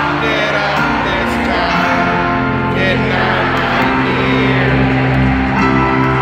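A folk-rock band playing live in an arena, recorded from high in the stands: sung vocals over guitars and upright bass, with the hall's echo.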